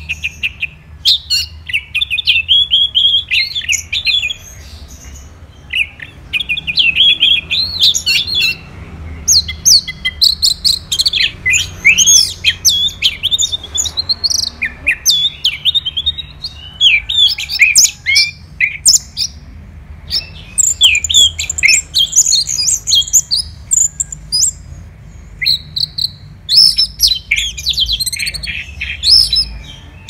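Orange-headed thrush singing a loud, varied song of quick whistled and chattering phrases, with short pauses between bursts.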